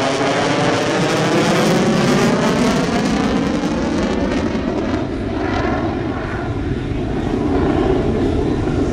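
Lockheed Martin F-22 Raptor's twin F119 turbofan jet engines, loud and steady as the fighter flies past during its display. The jet noise has a sweeping, phasing tone that slides down in pitch over the first few seconds and swirls again about halfway through as the aircraft turns away.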